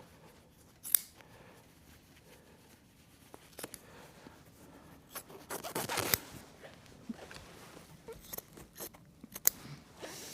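Fabric being trimmed with scissors and handled during upholstery pleating, with a rasping cut about halfway through. Sharp clicks come about a second in, and a couple more near the end.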